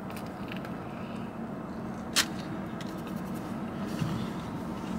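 Steady low hum of an idling car heard inside the cabin, with one sharp click about two seconds in and a few faint small clicks.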